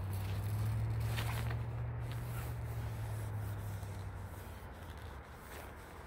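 Leaves and twigs of an apple tree rustling and scraping as a long-poled fruit picker with a net basket is worked among the branches. A steady low rumble underlies it and fades out about four to five seconds in.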